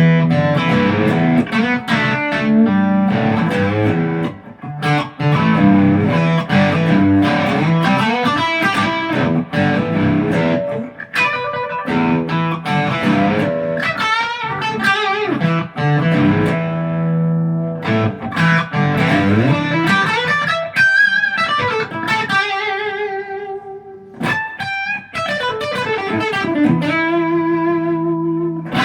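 ESP LTD EC-256 electric guitar, a two-humbucker solid-body, being played: a run of quickly picked single notes and chords, with a few longer notes held and wavered with vibrato about two-thirds of the way in and near the end.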